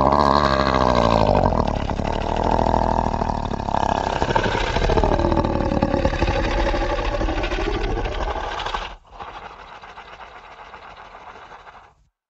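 Monster sound effect: a loud, low growl whose pitch slides up and down. It drops suddenly to a much quieter growl about nine seconds in, and that stops about three seconds later.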